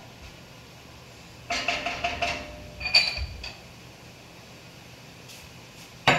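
Kitchenware clattering: a quick run of ringing clinks about one and a half seconds in, a sharper ringing strike about three seconds in, and a single sharp knock near the end.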